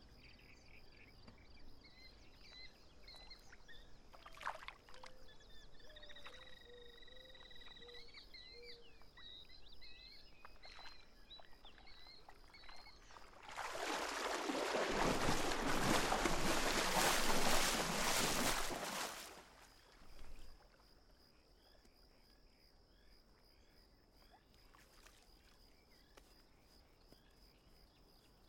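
Crickets chirping steadily, with a few faint whistled calls a few seconds in. About halfway through, water splashes and sloshes loudly for about six seconds, then dies away.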